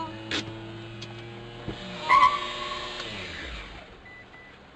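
Road traffic at an intersection: vehicle engines running steadily, with a short click near the start and a brief, loud squeal about two seconds in.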